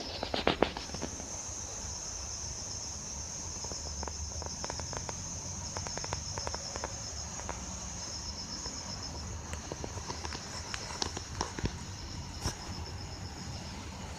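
Air conditioner outdoor unit running with a low steady hum and a steady high-pitched whine, with a quick burst of clicks at the start and scattered irregular ticks and clicks after.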